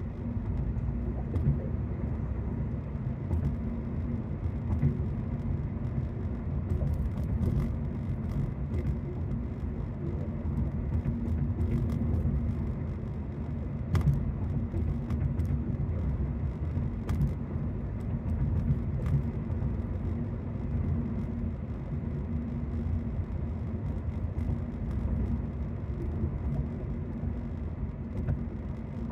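Steady low rumble of road and engine noise inside a moving car's cabin, with scattered light clicks and one sharper click about fourteen seconds in.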